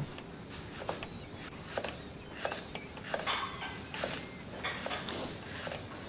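Dishes and cutlery clinking: more than a dozen light, irregular clinks of crockery and metal.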